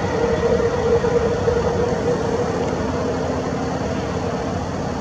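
A steady engine-like rumble with a held mid-pitched hum over it, which fades out a little before the end.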